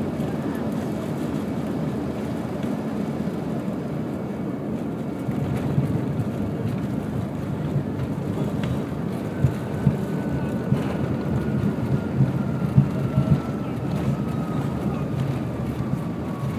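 Cabin noise of an Embraer ERJ 135 rolling out on the runway after touchdown: a steady low rumble of the airframe and landing gear, with a few thumps from the wheels in the middle. In the second half a faint whine slowly falls in pitch as the rear-mounted turbofans spool down.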